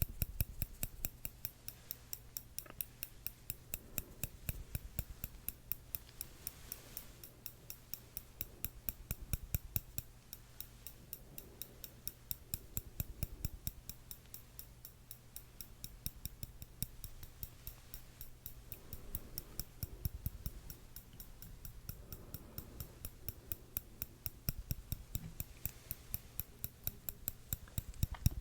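Metal tweezers tapping and clicking shut close to the microphone, sharp clicks in an even rhythm of about four a second.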